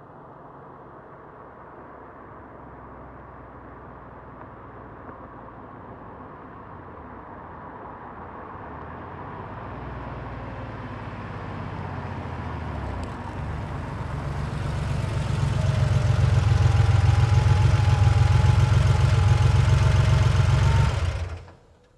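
1990 Porsche 911's air-cooled flat-six engine approaching slowly, growing steadily louder over about fifteen seconds as the car pulls up. It then idles close by with an even, low pulse and is shut off, cutting out suddenly near the end.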